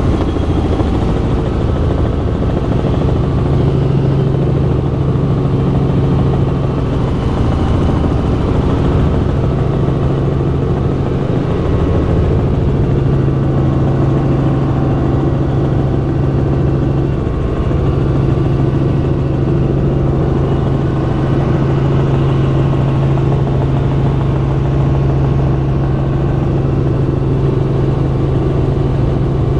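Helicopter in flight heard from inside the cabin: the engine and rotor make a loud, steady drone with a deep even hum that holds throughout.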